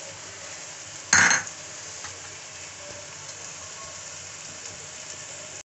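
Onion-tomato masala sizzling gently in a kadhai on a low flame, a steady soft frying hiss, with one short, loud noise about a second in as roasted cumin is added.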